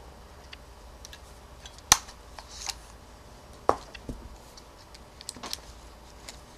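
Scattered small plastic clicks and taps of a Sony Cyber-shot DSC-W350 compact camera being handled as its battery and memory stick are taken out. The two sharpest clicks come about two and three-and-a-half seconds in, with lighter ticks later.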